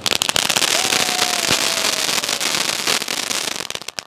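Flower-pot fountain fireworks crackling: a dense, rapid run of pops that starts suddenly and dies away about four seconds in.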